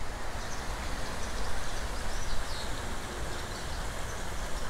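Shallow river running over stones, a steady even rushing.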